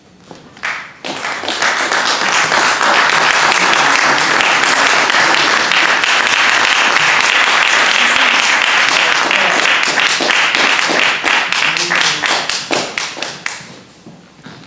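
Audience applauding a jazz quintet's introduction, swelling about a second in and thinning out to scattered claps near the end.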